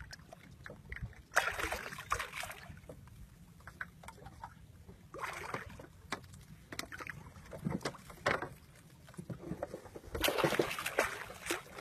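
Water splashing and sloshing in three bursts around a small boat, with scattered light knocks and clicks between them.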